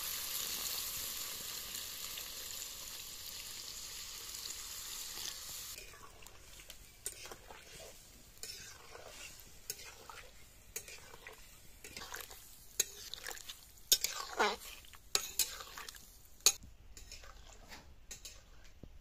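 Water poured into a hot iron kadai of frying chicken and tomatoes sizzles with a steady hiss that fades away about six seconds in. Then a metal ladle stirs the curry, scraping and clinking against the pan, with several sharp clinks toward the end.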